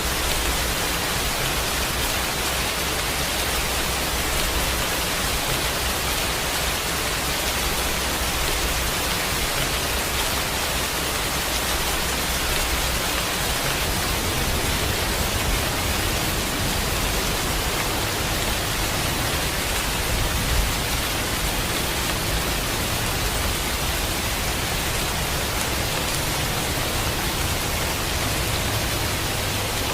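Steady, continuous rain falling, an even hiss with a low rumble underneath.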